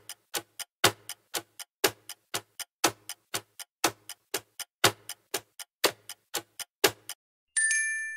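Clock ticking, about four ticks a second with a louder tick each second, stopping about seven seconds in. A bell dings once just after and rings on, fading.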